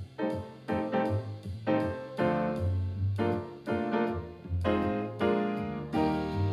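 Solo jazz piano on an acoustic grand piano: chords struck about every half second over low bass notes.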